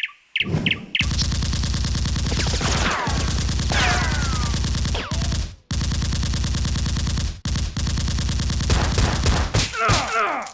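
Rapid automatic gunfire, dubbed-in machine-gun sound effects. A few single shots come first, then long sustained bursts broken by two short gaps, with falling whistling tones over the firing partway through.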